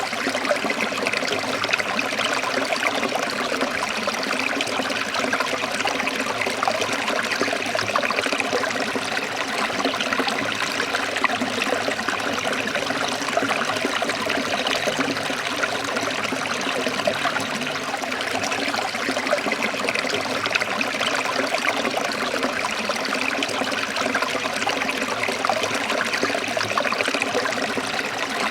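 Stream water trickling and splashing over rocks, a steady, even rush with no breaks.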